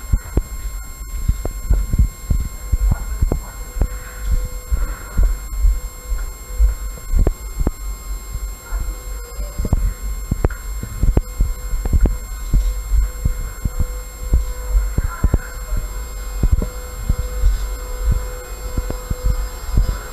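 Irregular deep thumps and small knocks, several a second, over a faint steady hum.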